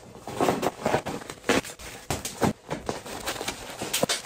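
Bubble wrap and plastic packaging crinkling and rustling as it is handled and pulled at, in a run of irregular crackles.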